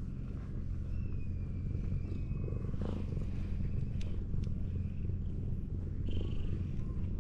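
Domestic cat purring steadily, close up, as it is rubbed under the chin: a contented purr.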